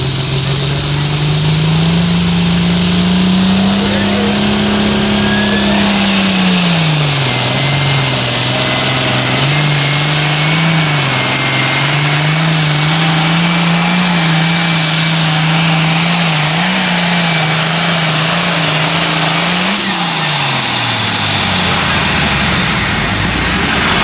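International Harvester 1066 hot farm pulling tractor's turbocharged diesel engine at full power, dragging the pulling sled, with a high turbo whine over it. The revs climb over the first few seconds, sag and waver through the pull, then wind down about twenty seconds in as the whine glides away.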